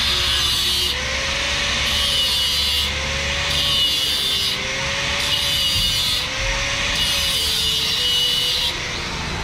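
Metal tubing of a steel frame being sawn by hand: repeated rasping strokes, about one a second, each with a faint ringing tone that rises and falls.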